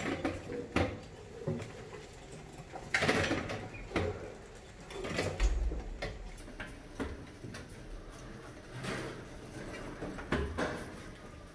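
Mice scrabbling and knocking about a glass-tank trap fitted with a column of aluminium drink cans on a wire-mesh ramp: irregular knocks and short rattling bursts as they climb the cans and drop inside.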